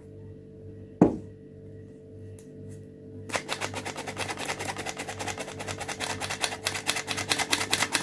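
Handheld stainless-steel flour sifter worked by its squeeze handle, giving a rapid, even metallic clicking that starts about three seconds in as flour is sifted into batter. A single sharp thump about a second in.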